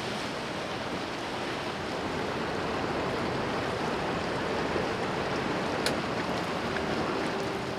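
Steady rushing water and wind noise aboard a motor boat under way on a river, with a faint hum near the end.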